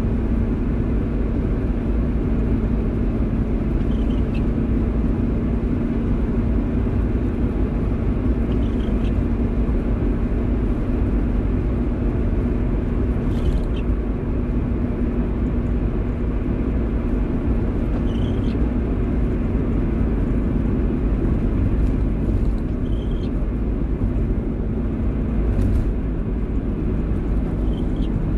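Car driving in the rain: a steady low road-and-engine rumble with a constant hum and a wash of noise, and a faint short squeak about every four to five seconds.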